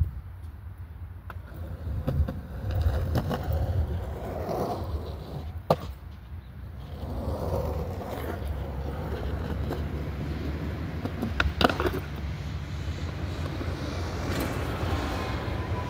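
Skateboard wheels rolling over concrete with a steady rumble, broken by a sharp board clack about six seconds in and a double clack about three-quarters of the way through, as the tail snaps or the board lands.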